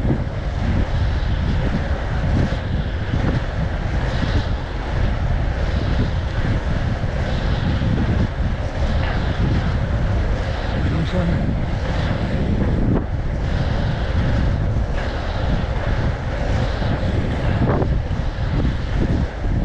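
Steady wind noise on the microphone at racing speed, over the rumble of inline skate wheels rolling on asphalt.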